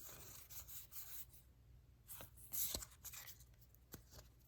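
Pokémon trading cards sliding and rubbing against one another as they are flipped through by hand, faint, with a few soft flicks.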